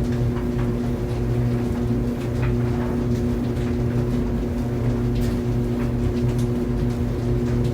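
Tumble dryer running: a steady motor hum with its drum turning, and faint irregular ticks and taps from the load inside.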